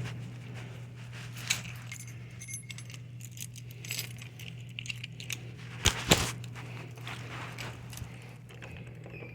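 Small metallic clicks and clinks of lock-picking tools working in a door knob lock's cylinder, irregular, with two sharper clicks about six seconds in.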